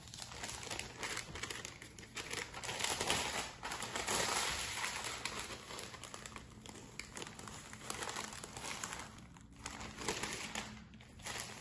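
Baking paper crinkling and rustling as it is lifted, wrapped and pressed around a Swiss roll to roll it. The crinkling is loudest about two to five seconds in.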